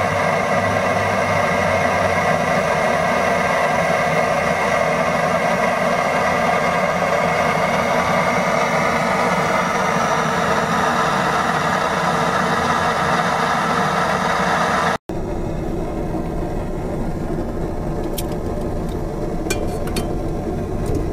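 Portable gas camp stove burning under a lidded pot, a steady hiss that is far from quiet. It cuts off abruptly about three-quarters of the way through and comes back slightly lower, with a few light clicks near the end.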